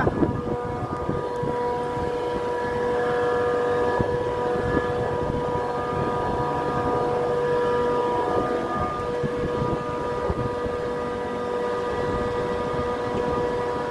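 Trane chiller's condenser fans running: a steady mechanical hum with several steady whining tones over a rush of moving air. The fan that was reported bad is running normally.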